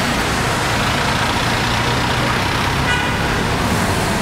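Steady road traffic noise from cars passing on a city street, with a short horn toot about three seconds in.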